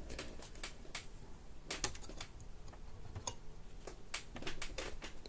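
Scattered light clicks and taps, irregular and quiet, over a faint low hum.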